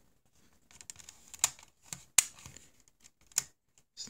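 Sharp plastic clicks and softer taps as fingers work the tape mechanism and direction switch of a Sony Walkman WM-FX41 cassette player, three louder clicks spaced about a second apart. The mechanism is a little on the sticky side.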